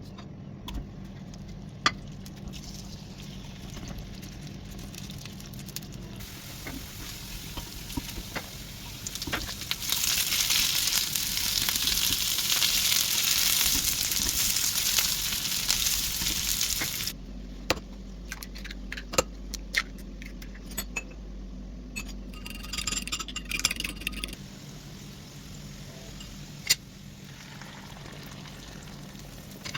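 Kitchen sounds during potato cooking: utensils clicking and tapping against dishes, and a loud steady hiss for about seven seconds from about ten seconds in that stops abruptly.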